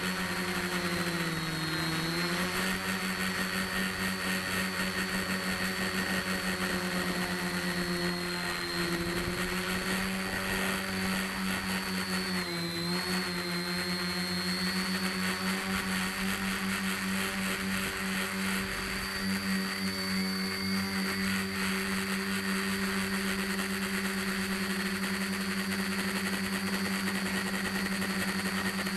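Quadcopter motors and propellers buzzing steadily in flight, close up from a camera strapped to the frame. The pitch dips briefly a couple of seconds in and again about halfway through.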